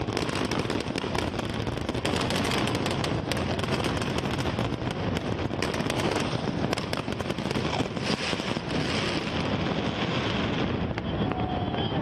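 Fireworks display: a dense, continuous barrage of pops and crackles from many shells bursting over one another.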